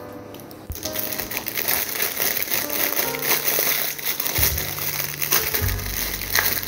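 Clear plastic packaging crinkling as a hand grips and handles a bagged part of a vegetable dicer, starting about a second in, over background music.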